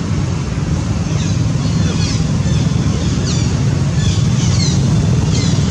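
Steady low rumble of wind buffeting the microphone. Short high falling chirps come through it about once a second.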